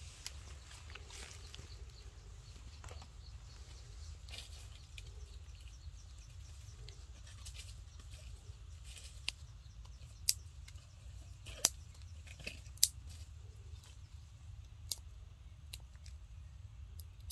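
Dry leaves and twigs rustling faintly under a hand stroking a baby monkey lying on the ground, with a few short sharp crackles in the second half over a low steady hum.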